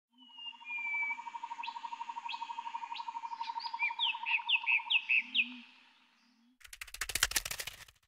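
Bird calls: a few whistled notes and sharp chirps, then a run of quick downward-swept notes, over a steady rapidly pulsing trill. Near the end comes a loud, rapid clattering burst lasting about a second.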